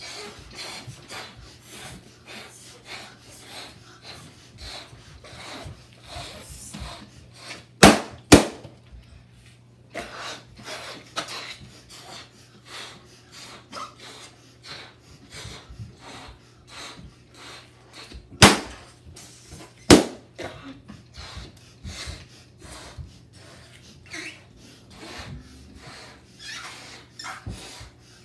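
Two children puffing air hard into rubber balloons in quick repeated breaths, with four sharp, loud balloon pops: two half a second apart about eight seconds in, and two more about ten seconds later, a second and a half apart.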